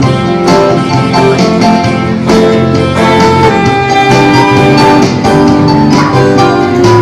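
Live band playing an amplified instrumental passage with no vocals: held melody notes over a steady beat and plucked accompaniment.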